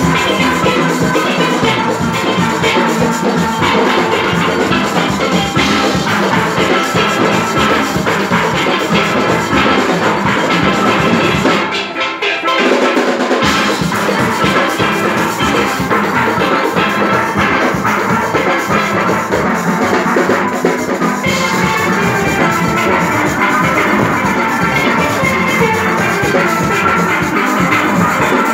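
Full steel band playing: many steelpans sounding together over a drum rhythm section. About twelve seconds in, the bass and drums drop out for a moment before the whole band comes back in.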